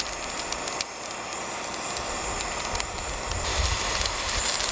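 Jetboil canister stove's gas burner hissing steadily under a pot of water that is starting to steam. A few light crinkles of plastic packaging being handled.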